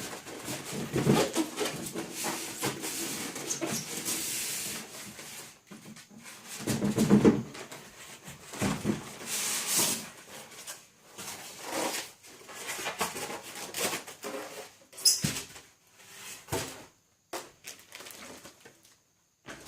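Rustling and crackling of packaging being handled during an unboxing, with irregular small knocks and scrapes of parts being taken out.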